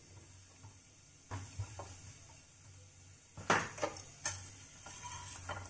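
Wooden rolling pin and rolling board knocking and clattering while a paratha is rolled out, with light clatters early and a few sharp knocks about three and a half to four seconds in, over a low steady hum.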